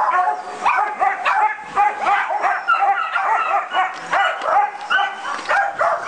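Several dogs yipping and barking in short, high, overlapping calls, several a second, without a break.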